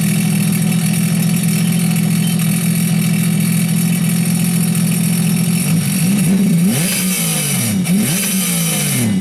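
Sea-Doo GTI 130 jet ski's three-cylinder four-stroke engine running out of the water on its trailer: a steady idle, then revved up and down several times in the last few seconds before settling back to idle. The short run on land is to clear water out of the machine.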